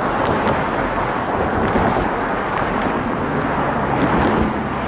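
Steady road-traffic noise, a vehicle running close by with a low hum under an even rush of sound.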